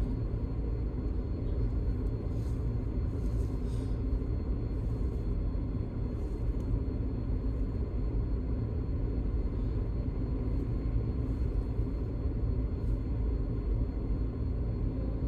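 Steady low rumble heard from inside a stationary car: the engine idling with cabin and road noise.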